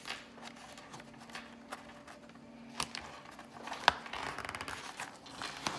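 Paper pages of a picture book being handled and turned: a couple of sharp taps, then paper rustling in the last second or two.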